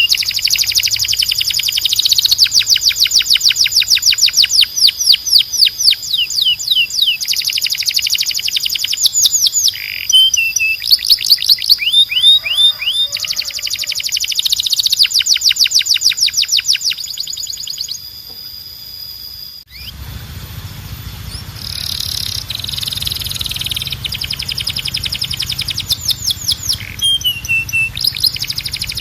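Timbrado canary singing in rapid trills, each a fast run of repeated notes, switching from one trill to the next every second or two. About two-thirds of the way through, a steady low hum comes in under the song.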